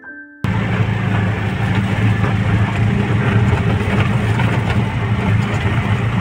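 Auto-rickshaw engine running steadily with road noise, heard from inside the cab. It starts abruptly about half a second in, after the last notes of music.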